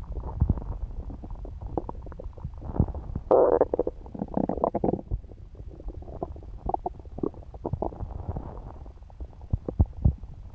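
Human stomach gurgling while digesting pizza: a continuous low rumble with many small pops and squelches. A louder gurgle comes about three and a half seconds in and runs for a second or so.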